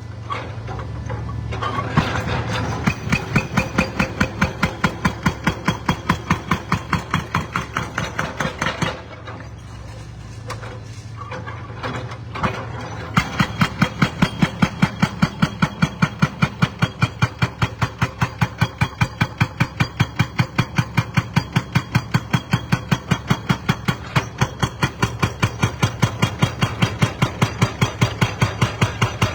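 Demolition breaker hammer pounding in rapid, regular blows, about three to four a second, over a running diesel engine. The hammering stops for a few seconds partway through, then starts again.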